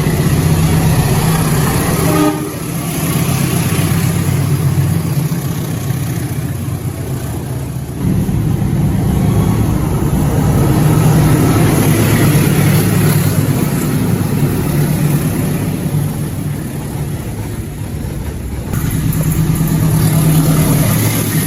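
Diesel locomotive engine running, a loud steady low rumble, changing abruptly about two seconds in, about eight seconds in and near the end.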